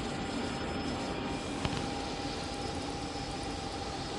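CNC panel bender's servo drives running with a steady mechanical hum and a steady whine, and a single sharp click about a second and a half in.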